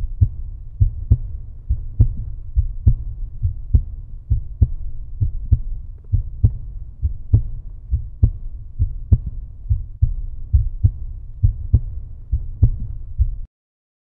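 Deep, low heartbeat-like thumping in an uneven beat of about two a second, a soundtrack effect under the end card; it cuts off suddenly near the end.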